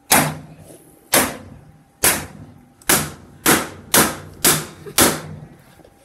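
Baseball bat striking a front-loading washing machine eight times, each hit a sharp bang with a short ring after it. The blows come about a second apart at first, then faster, about every half second.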